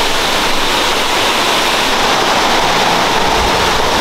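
A large waterfall close by: a loud, steady rush of falling water.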